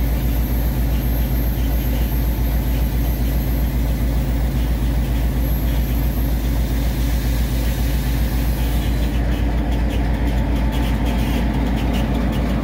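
EMD 16-645E sixteen-cylinder diesel prime mover of an SD38-2 locomotive idling, a steady low running with an even pulse.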